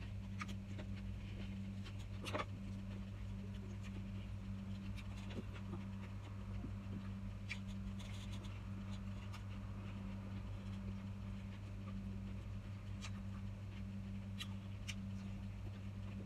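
Person eating by hand, with scattered small clicks and smacks of the mouth and fingers, over a steady low hum.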